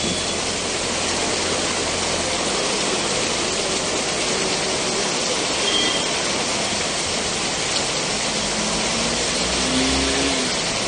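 Heavy monsoon rain pouring down on a street and running off the road: a loud, steady hiss. A low hum from passing traffic rises underneath near the end.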